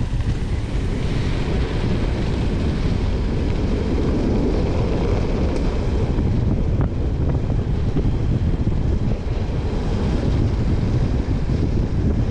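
Wind buffeting the microphone while riding a gravel bike along a dirt road, a steady low rumble mixed with the rolling of tyres on dirt.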